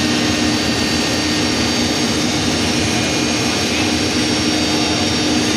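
Backhoe loader's diesel engine running steadily at close range: a loud, even drone with a steady hum and no change in pitch.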